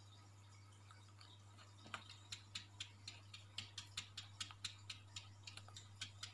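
A cat's paws tapping and clicking against aquarium glass, an irregular quick run of sharp taps that starts about two seconds in. A steady low hum runs underneath.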